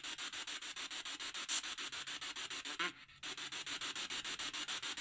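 Spirit box sweeping through radio frequencies: rapid pulsing static, about ten pulses a second. It cuts out briefly about three seconds in.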